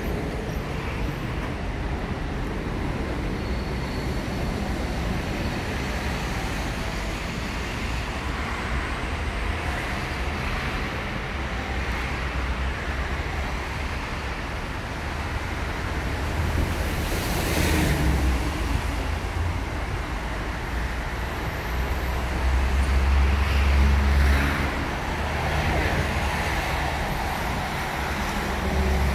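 City street traffic: steady road noise and engine rumble from passing vehicles. A short loud hiss comes about seventeen seconds in, and a low engine rumble swells around twenty-three seconds in.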